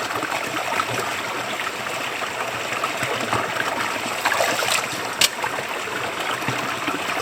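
Creek water running steadily at the base of a little waterfall, with a sharp knock about five seconds in.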